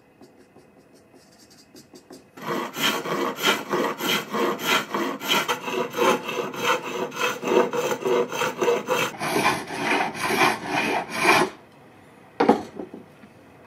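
Flat hand file rasping across the sawn end of a piece of elk antler clamped in a vise, in quick back-and-forth strokes to flatten it. The strokes start a couple of seconds in and stop sharply near the end, followed by a single knock.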